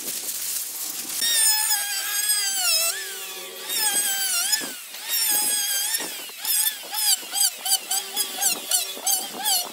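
Electric hand planer cutting wood: its high motor whine starts about a second in and dips in pitch each time the blades bite. Near the end it breaks into quick short passes, about three a second.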